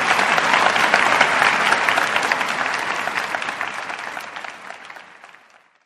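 Large audience applauding, a dense patter of many hands clapping that fades away over the last two seconds.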